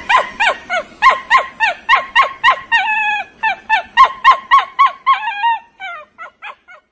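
Shiba Inu barking in rapid high-pitched yelps, about four a second, each dropping in pitch. A few yelps in the middle are drawn out longer, and near the end the yelps grow fainter and sparser.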